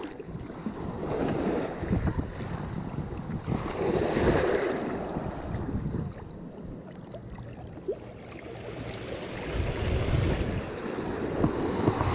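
Ocean surf breaking and washing up over sand at the shoreline, with wind rumbling on the microphone. The wash swells about four seconds in, eases off, and builds again near the end.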